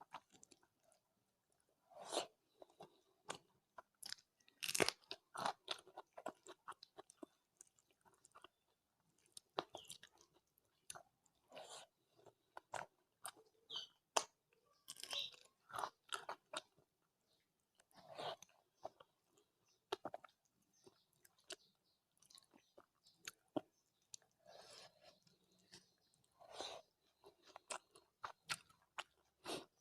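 Close-miked chewing of rice and curry: irregular wet mouth clicks and smacks with occasional louder crunches, in quick uneven succession.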